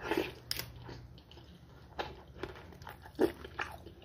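A bite into a crispy fried egg roll filled with egusi stew, then close-miked chewing with scattered crunchy crackles.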